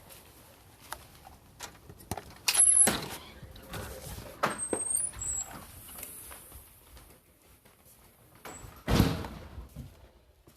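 Irregular knocks and clunks from things being handled, with a few brief high squeaks. The loudest knocks come about a quarter of the way in and again near the end.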